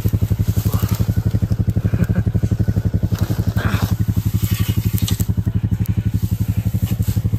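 A small engine idling steadily with an even, rapid putter.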